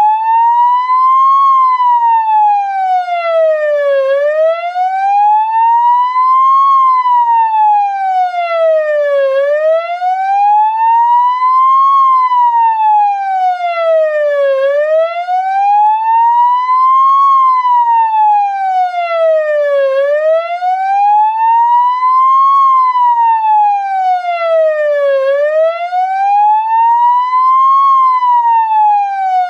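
Electronic emergency-vehicle siren in a slow wail, its pitch rising steadily and then falling again in a smooth cycle about every five seconds. It runs through about five and a half such cycles.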